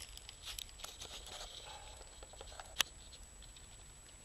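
Faint handling noises of a fishing hook being worked out of a turtle's mouth with pliers: scattered small clicks and rustles, with one sharp click about three seconds in.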